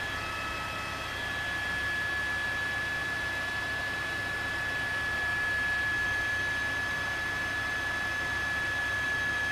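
Steady hiss with a constant high-pitched whine.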